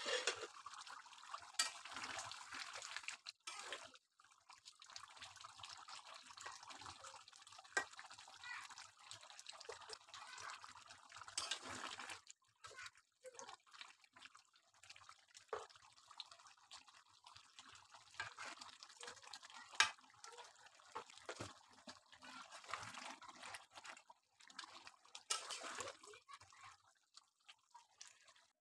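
Chicken and bottle gourd curry bubbling in a metal kadai: a faint, crackling simmer with many small pops, and now and then a spatula scraping the pan as the curry is stirred.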